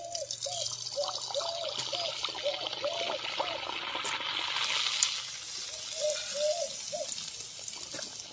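A puri deep-frying in hot oil in a steel kadhai, giving a steady sizzling hiss. The sizzle is strongest about halfway through as the puri puffs, with one sharp crackle of spattering oil about five seconds in.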